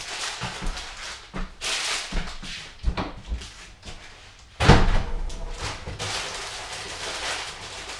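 Kitchen handling noises, scattered knocks and rustling, with one loud bang about four and a half seconds in, a kitchen cupboard door being shut.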